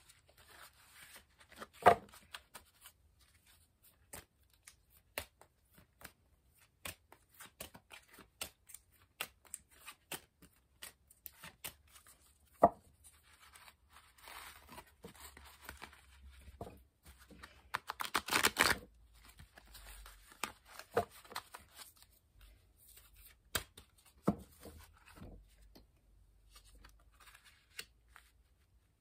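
A deck of Whispers of Lord Ganesha oracle cards being shuffled and handled by hand: soft rustling and scattered clicks of card stock, with two sharp taps about 2 and 13 seconds in and a longer, louder stretch of rustling about two-thirds through. Near the end a card is laid down on the cloth-covered table.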